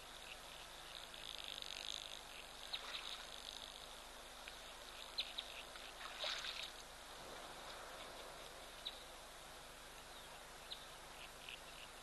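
Faint outdoor ambience of insects buzzing and small birds chirping, with a short, louder noisy burst about six seconds in.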